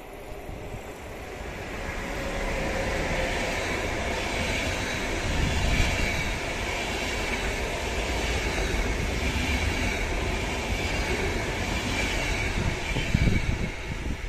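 ÖBB electric locomotive and its passenger coaches passing on the rails: a rumble builds as it approaches, then a steady rolling rumble of wheels on track with a thin high wheel squeal, with two louder knocks, about six seconds in and near the end.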